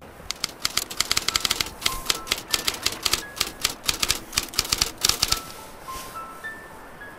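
Typewriter sound effect: a rapid, uneven run of key clicks lasting about five seconds, typing out an on-screen caption. A few soft, high music notes sound behind it from about two seconds in.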